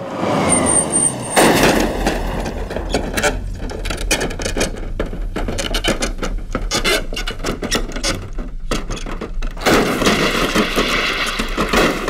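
Film car-crash sound effects: a high tyre squeal at the start, then the car rolling over and over with a rapid run of metal crunches, thuds and scraping, and a loud burst of crashing near the end.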